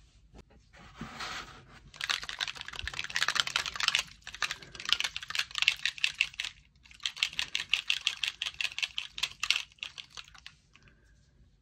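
A spray bottle of metallic mist being shaken hard to mix pigment that had settled on the bottom: a fast rattling in three long bursts.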